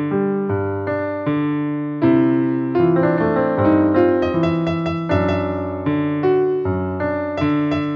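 Background music: electric piano playing chords and a melody in a steady rhythm, each note struck and fading.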